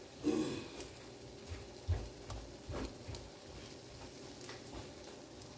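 Faint, steady sizzling as waffle batter is poured over bacon strips on the hot, buttered plates of a stick waffle maker, with a few soft knocks about two to three seconds in.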